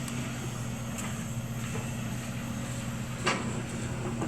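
Excavator's diesel engine running steadily, with a single sharp knock about three seconds in.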